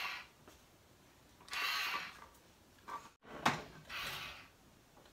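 Handling noises from a failing attempt to open a can: a few short rustling scrapes and a couple of sharp clicks.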